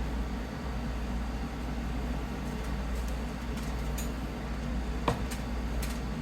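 Steady low mechanical hum, like a running fan or appliance, with a few light clicks and one sharper click about five seconds in.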